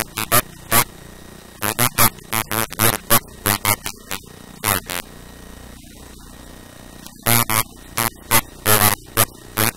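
A voice talking in short phrases, with a pause of about two seconds in the middle, over a steady low hum.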